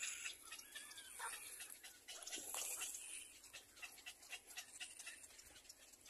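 Faint begging calls of a little black cormorant chick on the nest: short, thin, curving calls about a second in, among scattered light ticks.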